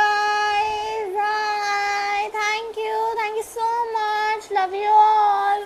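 A girl singing in a high voice, holding long, steady notes with short breaks between them.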